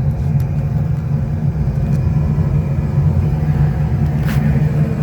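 Steady low hum of a rooftop gas package unit running, with a couple of light clicks near the start and about four seconds in.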